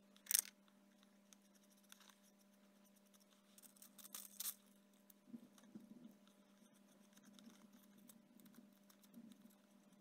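Quiet crafting handling noises: paper rustling as small pieces of decoupage paper are torn and pressed onto a cardboard model, with a short sharp rustle near the start and another burst around four seconds in. A steady low hum runs underneath.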